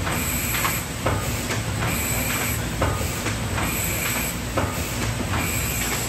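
Ecosystem Quick 106 thermal film laminator running: a steady low hum under a hiss and a click that come back roughly every two seconds as printed sheets are fed through.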